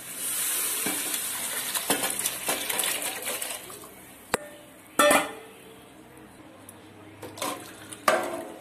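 Coconut milk being poured into a hot metal pot of fried onions, a hissing splash for the first few seconds. Then a steel ladle clinks against the pot as the mixture is stirred, the loudest clink about five seconds in.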